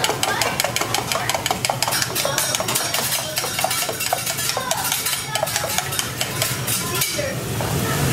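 Metal utensils clicking and clattering rapidly against a metal bowl and a teppanyaki griddle over a steady low hum. Near the end a hiss rises as beaten egg is poured onto the hot griddle.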